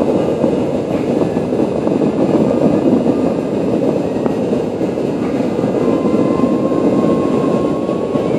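Steady, loud low rumble of engine noise.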